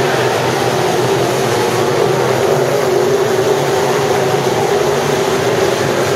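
A field of dirt-track sport modified race cars running laps, their engines loud and steady.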